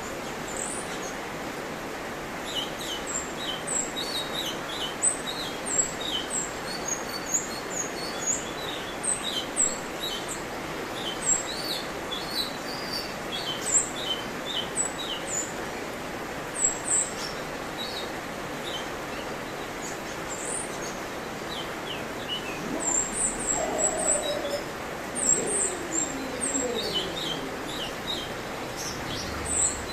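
Cucak cungkok singing a fast, varied run of short, sharp, high chirps and whistled notes over a steady background hiss. About two-thirds of the way through, a lower series of notes glides downward.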